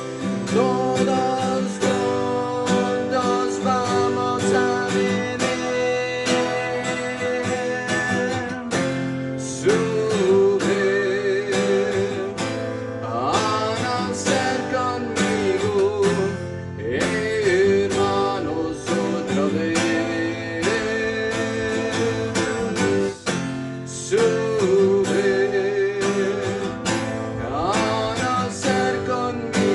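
Instrumental passage of a song: a strummed acoustic guitar playing chords, with a wavering melody line over it.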